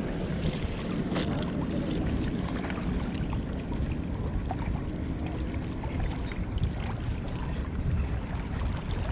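Steady wind rumble on the microphone, with a few faint clicks.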